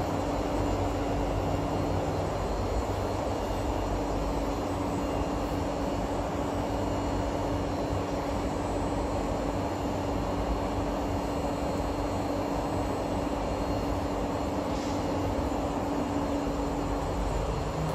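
Steady hum and rushing of a stationary SMRT C151A train car's ventilation and auxiliary equipment, with a constant low tone under it.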